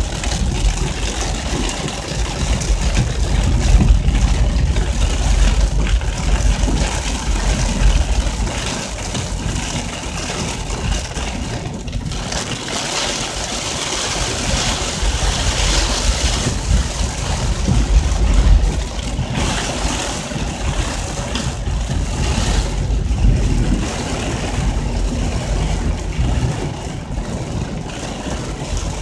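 Torrential rain and wind from a hurricane-driven storm: a steady loud hiss with a deep rumbling that swells and eases irregularly.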